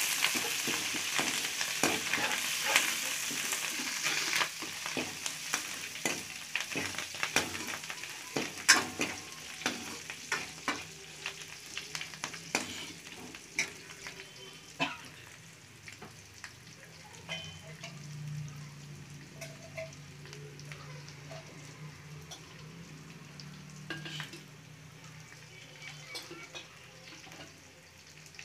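Tempering of shallots, garlic, green chillies, curry leaves and mustard seeds sizzling in hot oil in a steel kadai while a steel ladle scrapes and clinks against the pan. The sizzle is loudest at first and fades steadily, and the clicks of the ladle grow sparse after about fifteen seconds as the stirring stops.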